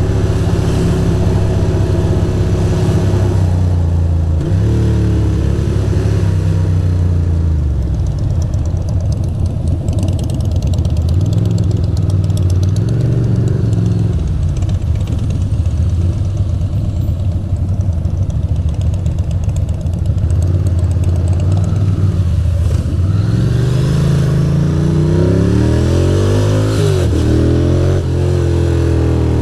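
A 2006 Ducati Monster 620's air-cooled V-twin engine riding through the gears, its pitch rising and falling several times as the throttle is opened and rolled off. There is a run of quick climbs in revs near the end.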